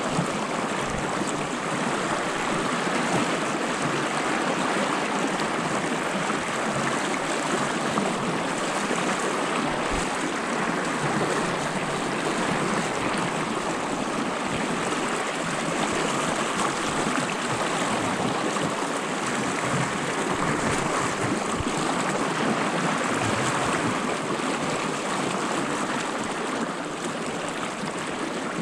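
Steady rush of a fast-flowing creek.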